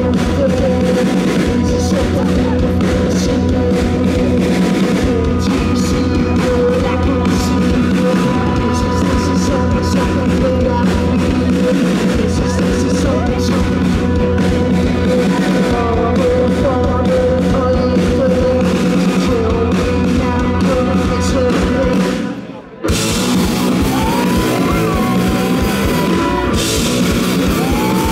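Live rock band playing loud: distorted electric guitar, bass and drum kit, with sung vocals. The sound drops out for a moment near the end and comes straight back.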